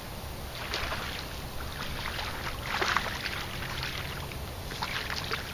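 A hooked bass splashing and thrashing at the pond's surface as it is reeled in to the bank, in several spells of splashing, the loudest about three seconds in.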